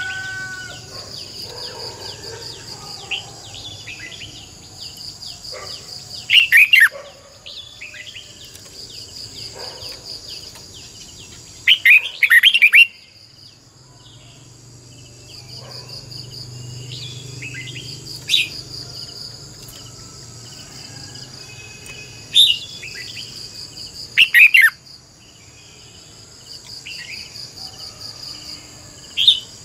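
Red-whiskered bulbul singing short, loud, falling phrases every few seconds, over a steady high insect trill.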